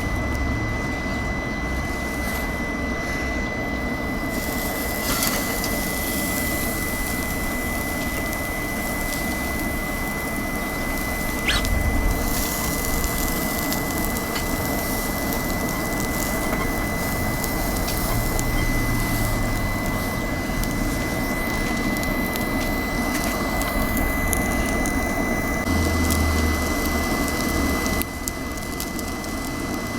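BioLite CampStove 2+'s built-in fan running steadily with a high, even whine, over the rushing of a wood fire burning hot in the stove.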